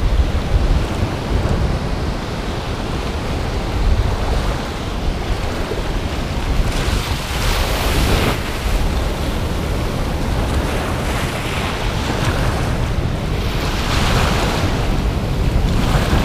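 Ocean surf washing in at the shoreline, with wind buffeting the microphone as a steady low rumble; a wave washes in loudest about halfway through and another near the end.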